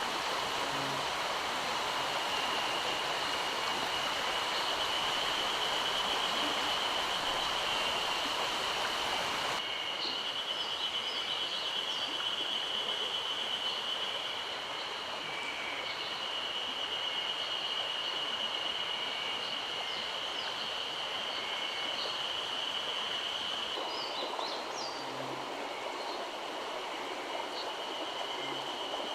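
Mountain stream rushing steadily over rocks, with a constant high-pitched whine running above it. About ten seconds in, the rushing abruptly becomes softer and less hissy, and short high chirps come and go over it.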